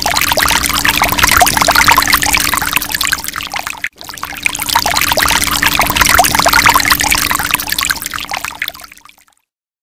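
Running water, splashing and pouring, over a faint steady hum. It comes in two stretches: the first breaks off suddenly just before four seconds in, and the second fades out about nine seconds in.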